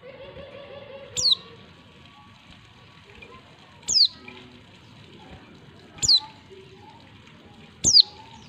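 Female white-eye (pleci) giving four short, sharp call notes a couple of seconds apart, each falling quickly from high to lower pitch. This is the female call that keepers play to set male white-eyes calling and answering.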